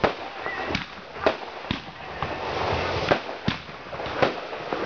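Aerial fireworks going off: about seven sharp bangs at irregular intervals over a steady crackling hiss, which swells in the middle.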